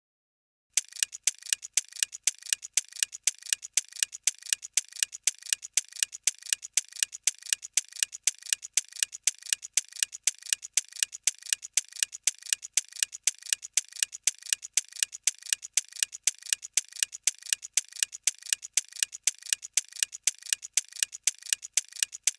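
Ticking clock sound effect, counting down the thinking time for a quiz question. It starts a little under a second in and keeps a quick, even beat of sharp, bright ticks.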